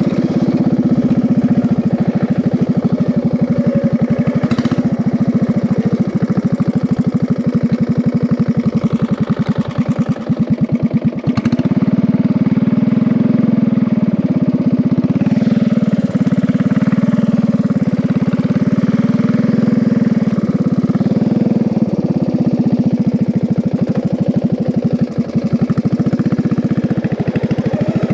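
Race-converted riding lawn mower's engine running under load as the mower is driven, its speed rising and falling, with a brief drop about ten seconds in.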